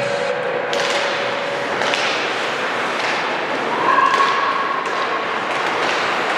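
Ice hockey play in an arena: sharp clacks and thuds of sticks and puck against the boards over a steady wash of skating and crowd noise, with a short held tone about four seconds in.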